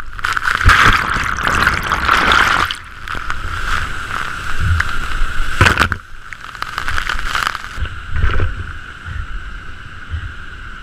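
Roar of the Rhine Falls: heavy water rushing and pounding continuously, with low thumps of wind buffeting the microphone.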